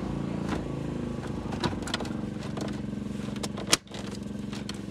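Rover 25 plastic dashboard and centre-console trim clicking as it is pressed back into place by hand, with one sharp snap a little before the end. A steady motor drone runs underneath.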